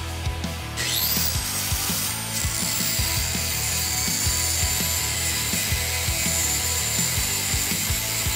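Angle grinder spinning up about a second in, then holding a steady high whine as it grinds into the steel of a truck's front steering knuckle and hub assembly. Background music with a steady beat plays underneath.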